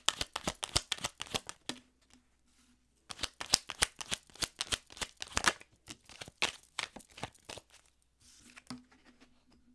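A deck of tarot cards being shuffled by hand, a quick run of card flicks and slaps, pausing briefly about two seconds in and then going on, growing fainter near the end.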